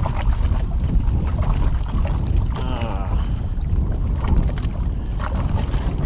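Wind rumbling steadily on an action camera's microphone on an open boat, with a few light clicks and knocks from handling a fishing rod and reel. A brief wavering cry sounds about two and a half seconds in.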